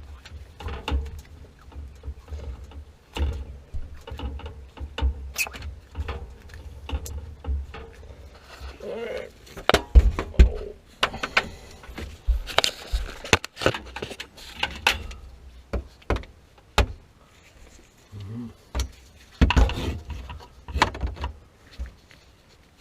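Hands at work on a repair job: irregular knocks, clicks and rattles of tools and parts being handled, with a low rumble through the first half and the sharpest knocks about ten and twenty seconds in.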